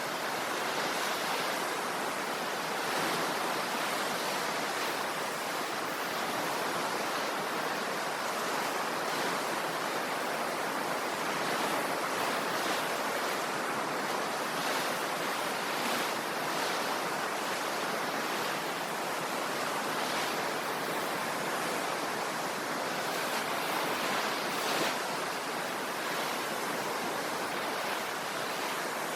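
Sea waves washing on the shore: a steady hiss of surf that swells a little now and then.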